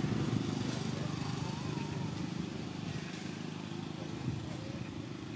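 Steady low engine rumble, easing off slightly toward the end, with a faint high squeak about a second and a half in.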